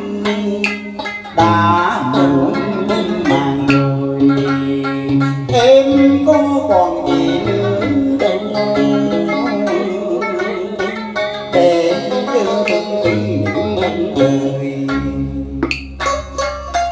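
Instrumental cải lương accompaniment on plucked strings: guitar and đàn sến playing an ornamented melody with bending notes over a steady bass line.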